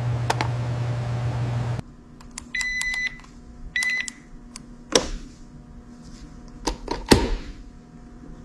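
A steady electric hum that cuts off suddenly about two seconds in, followed by two short electronic beeps and then a few sharp clicks or knocks.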